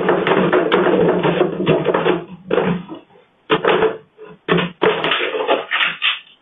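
Cat exercise wheel rumbling and rattling as it spins fast, heard through a security camera's thin-sounding microphone. From about two and a half seconds in, the noise breaks into short rattling bursts with pauses between them as the wheel slows and stops.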